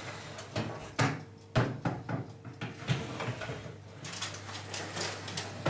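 Metal baking trays scraping and knocking against the oven's rack runners as they are slid out and pushed back in to swap their levels, a string of clatters with the sharpest knocks about a second and a second and a half in.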